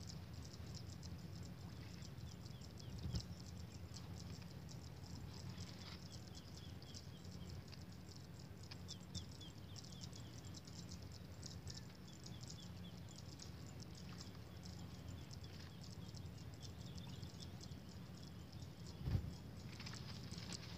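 Faint paddy-field ambience: insects ticking rapidly and small birds chirping, over a steady low rumble. A soft thump comes about three seconds in and a stronger one near the end.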